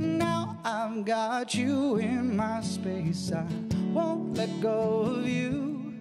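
Male singer singing a melody with acoustic guitar accompaniment.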